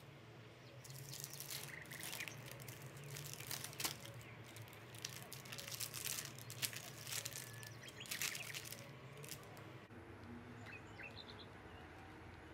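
Parchment paper crinkling and crackling in irregular bursts as it is peeled off a sheet of sticky honey-cake dough. After a change a few seconds before the end, faint bird chirps sound in the background.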